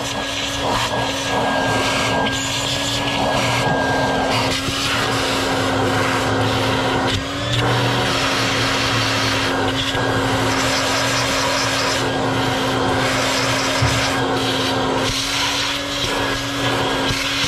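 Shop vacuum running steadily, its hose nozzle sucking metal shavings and debris out of an engine block's valley. A constant motor hum sits under the rush of air, which changes as the nozzle moves and dips briefly a couple of times.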